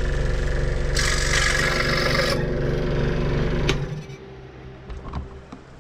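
Bench scroll saw running, its blade going rapidly up and down. About a second in, the blade cuts through a thin wooden planking strip for about a second and a half with a rasping sound. The saw is switched off just before four seconds and runs down.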